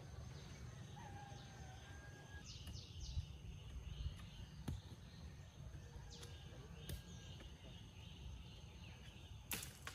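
Faint forest ambience with a steady high insect tone and a few short bird chirps, broken by about five sharp knocks of a digging bar tamping soil around a wooden post.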